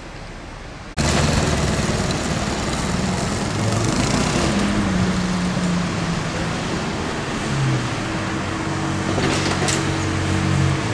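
Ferrari 812 Competizione's naturally aspirated V12 running at low revs as the car pulls slowly away, a steady engine note that shifts a little in pitch. It comes in abruptly about a second in, after faint hiss.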